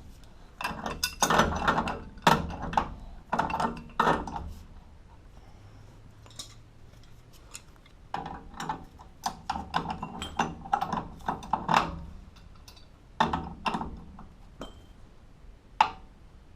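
Metal tools and fittings clinking and clattering as they are handled, in several uneven bursts with quieter gaps between, and one sharp click near the end.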